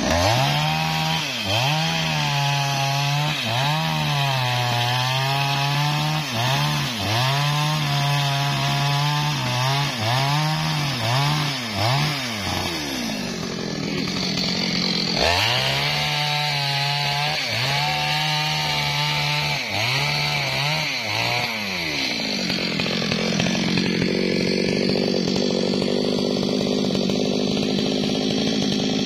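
Stihl MS440 two-stroke chainsaw cutting through a durian log, its engine revving high and sagging about once a second as the chain bites into the wood. It runs like this for a long stretch, pauses briefly midway, cuts again, then runs on more steadily without the high revs for the last several seconds.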